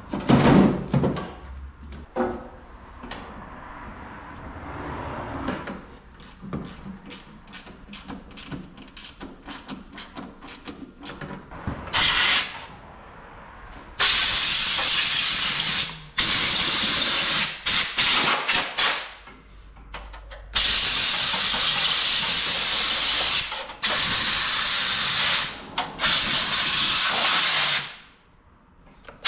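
Compressed-air blowgun blowing out a Kubota mini excavator's radiator: loud hissing blasts from about twelve seconds in, each one to three seconds long and cutting on and off abruptly. Before that, knocks and clatter of parts being handled, with a loud thump at the very start.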